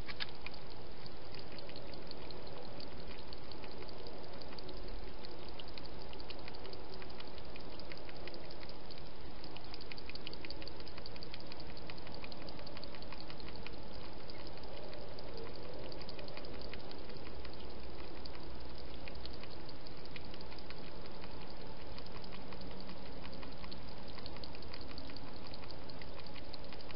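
Steady hiss with a dense scatter of faint rapid clicks, unchanging throughout: the self-noise of a night-vision trail camera's microphone.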